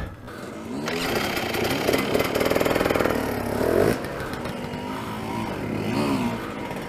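Dirt bike engines revving as riders come up a rocky wash: throttle blips that rise and fall in pitch over a steady running engine, loudest from about two to four seconds in, where it drops off sharply, with another rev near six seconds.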